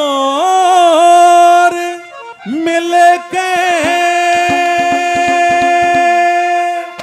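Haryanvi ragni: a male singer holds long wordless sung notes with ornamented slides over a steady instrumental drone. About halfway through, quick hand-drum strokes come in at about five a second, then stop near the end.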